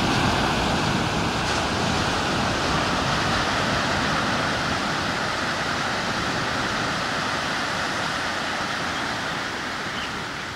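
Steady rush of surf washing onto a sandy beach, easing off slightly near the end.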